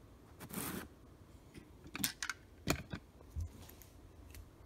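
Close handling noises: a short rustle about half a second in, then a few light clicks and scrapes around the middle.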